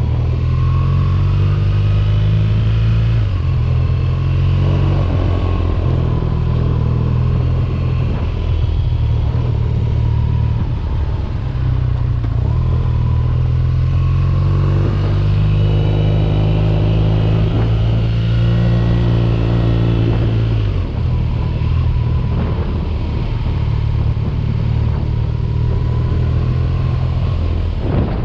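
BMW R nineT Pure's 1170 cc air/oil-cooled boxer twin running continuously, its low note stepping up and down several times.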